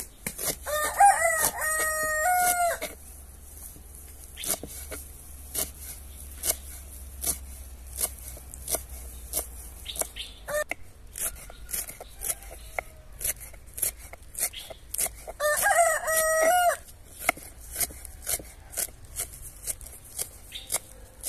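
A rooster crows twice, once near the start for about two seconds and again about fifteen seconds in. Throughout, a kitchen knife chops wild greens on a wooden board in sharp knocks, about two a second.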